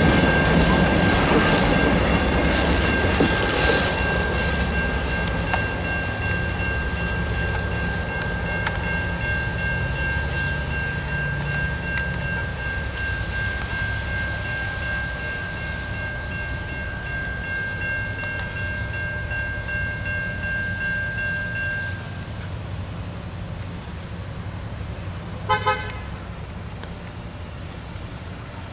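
Amtrak Piedmont passenger train pulling away, its rumble fading steadily, with a steady high whine that stops about three quarters of the way through. Near the end come two short horn toots.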